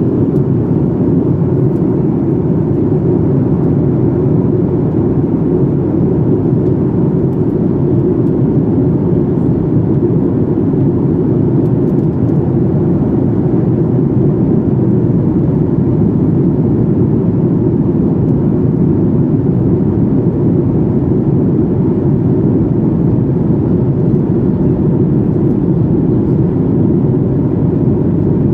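Steady low roar inside the cabin of a Boeing 737-800 in flight: engine and airflow noise heard from a window seat over the wing.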